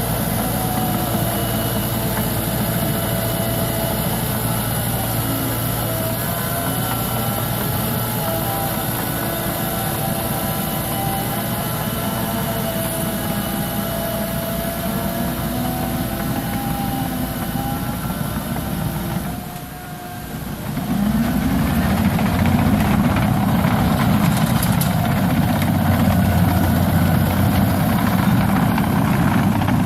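Liebherr 724 crawler dozer's diesel engine running, with a wavering whine over it. About two-thirds of the way through the sound drops away briefly, then comes back louder and rougher.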